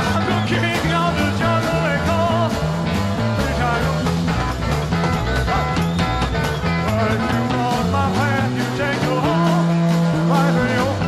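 Rock music with a steady drum beat and a bass line.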